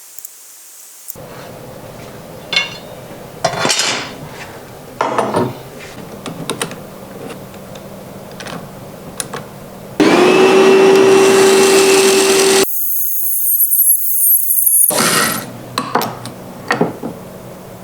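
Workshop work sounds: parts and tools handled with a string of clicks and knocks, then an electric power tool spins up and runs steadily for a few seconds before cutting off suddenly, followed by more knocking.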